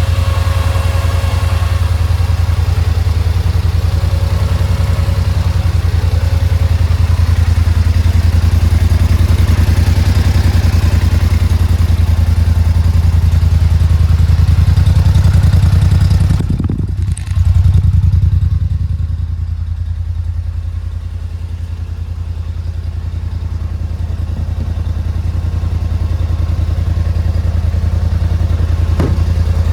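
2018 Polaris Sportsman 850 ATV's twin-cylinder engine running steadily. There is a brief knock and a dip a little past the middle, then it eases off and builds up again.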